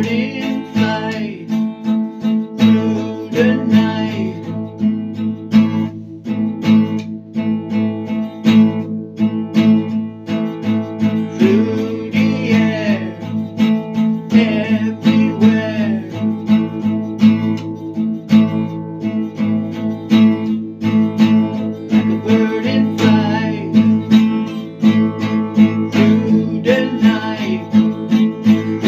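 Acoustic guitar music, strummed steadily without a break.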